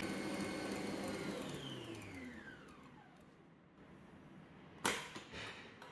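Kenwood stand mixer's motor and balloon whisk winding down after beating eggs and sugar to a thick, pale foam: a falling whine that fades over about three seconds, then a sharp clack near the end.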